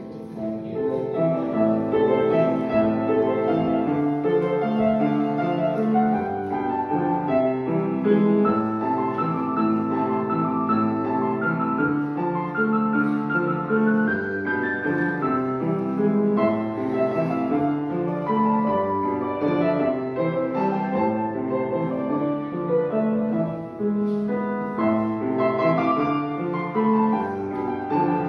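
Piano music: a piece played continuously, with a run of single notes over chords throughout.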